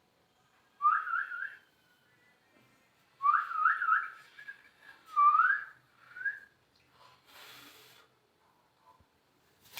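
Whistling: three quick rising notes about a second in, three more around three seconds in, then a longer rising note and a short final one.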